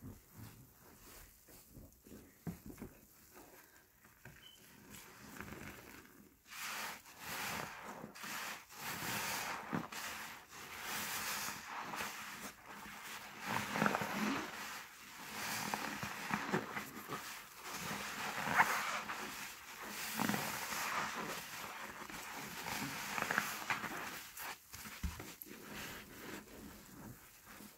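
HDX sponges squeezed and kneaded by gloved hands in a bin of thick soap suds: wet squishing and crackling foam. It is quieter for the first few seconds, then comes in louder, irregular squeezes.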